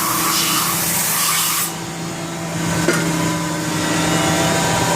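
Flood coolant spraying from a Haas VF-4SS machining center's nozzles, a loud hiss that cuts off suddenly about two seconds in, over the machine's steady hum. A single click follows about a second later.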